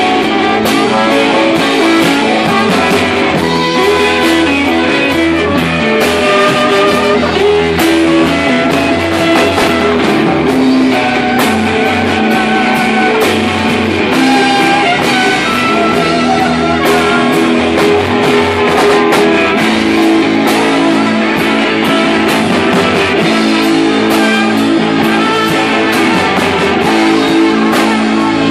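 Live band playing loud rock music, with guitar over a steady drum beat.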